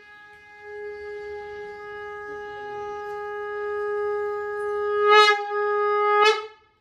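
Conch shell (shankh) blown for the aarti in one long steady note that grows louder, breaking twice near the end before it cuts off sharply.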